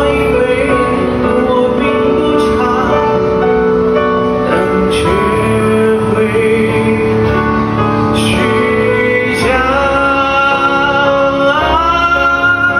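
A man singing a Mandarin pop ballad live into a microphone over instrumental accompaniment, with long held notes.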